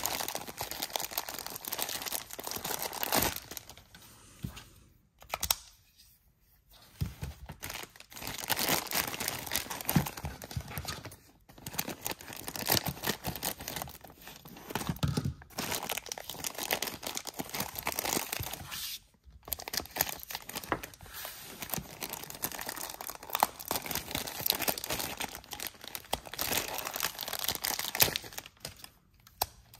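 Thin clear plastic bags crinkling and rustling as toy parts are handled inside them and pulled out, with a few brief pauses. Partway through, scissors snip a bag open.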